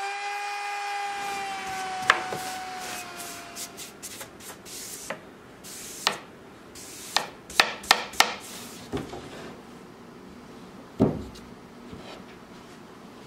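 Router spindle whining as it spins down and fades out over the first few seconds. Then a brush rubs over a wooden slab, with a run of sharp wooden knocks and taps and one heavier thump about eleven seconds in as the slab is handled.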